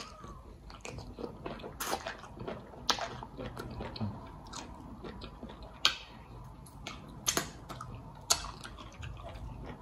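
A person chewing a mouthful of egusi and okra soup with meat, eaten by hand: wet mouth smacks and irregular sharp clicks, with soup being sucked off the fingers near the end.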